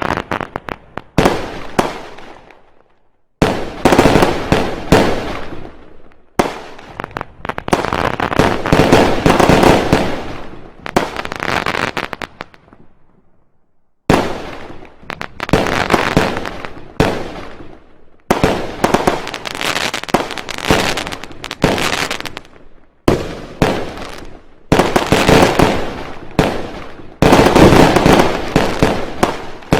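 Fireworks going off in rapid volleys of sharp bangs and cracks, each volley lasting a few seconds. There are two brief lulls, one about three seconds in and one around thirteen seconds in.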